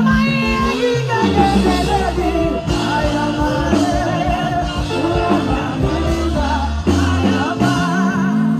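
Loud music with singing over a sustained bass line.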